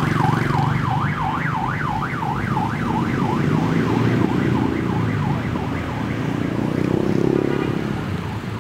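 A fast yelp siren sweeping up and down about three times a second, fading out about halfway through. Underneath are the engines of Suzuki APV vans driving past, swelling a little as one comes close near the end.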